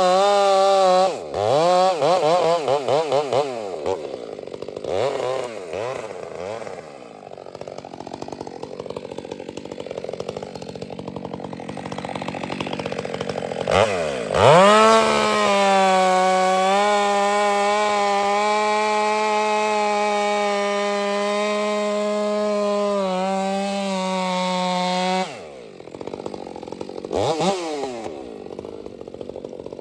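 Ported Stihl MS 462 chainsaw with a 28-inch bar: several quick throttle blips, a quieter stretch, then held at full throttle for about ten seconds while cutting into the cedar trunk. It drops back suddenly and gives one more short rev near the end.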